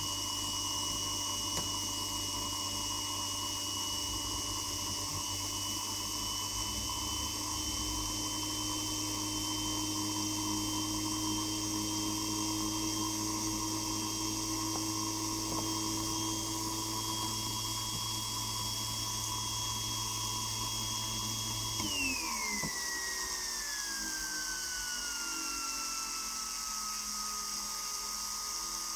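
Gintschel Tornado model steam turbine running with a high steady whine over a steam hiss and a low hum. About three-quarters of the way through, the hum stops and the whine falls steadily in pitch as the turbine slows. The turbine has only just enough power to turn the Ferris wheel it drives.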